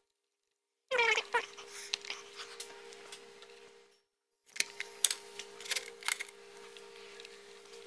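A dog whines twice with a falling pitch about a second in, over a steady hum. Later comes a run of sharp clicks and taps from hand tools working on the transmission's valve body.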